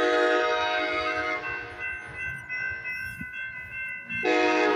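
Amtrak passenger train's horn sounding at a grade crossing: a long blast of about two seconds, then a second blast starting near the end. Underneath, a grade-crossing warning bell rings steadily.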